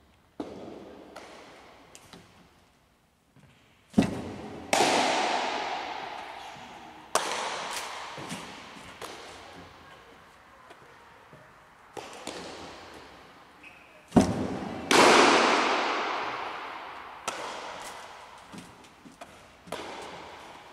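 Two baseball pitches about ten seconds apart: each a heavy thud of the stride foot landing on a portable pitching mound, then under a second later the ball smacking into the catcher's mitt and echoing for several seconds through a gymnasium. Lighter knocks in between as the ball comes back and is caught.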